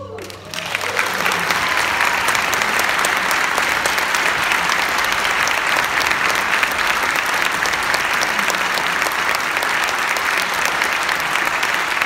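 Audience applause. The last of a string orchestra's final chord dies away, and the clapping breaks out about half a second in, then holds steady.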